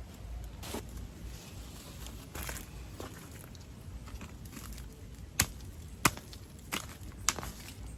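A series of sharp knocks, like chopping or tool strikes: a few faint ones early, then four loud ones about two thirds of a second apart in the second half.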